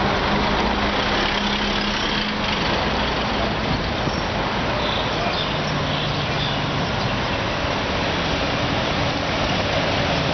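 Busy city-street traffic: a steady wash of engine and tyre noise from passing vehicles, with a low engine hum standing out at the start and again about halfway through.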